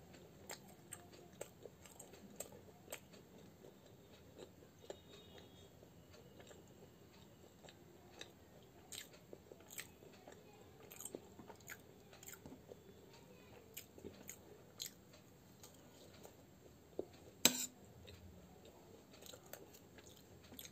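Close-miked chewing and biting of fried matar kachori dipped in green chutney: soft, irregular wet clicks and smacks of the mouth, with one louder click about 17 seconds in.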